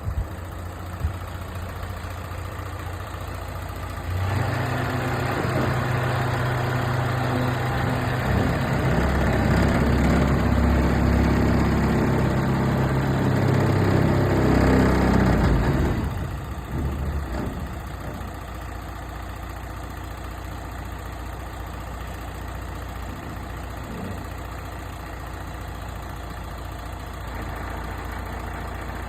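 Isuzu truck's diesel engine idling. About four seconds in it is raised to a higher, steady speed that creeps up a little. Some twelve seconds later it drops back to idle.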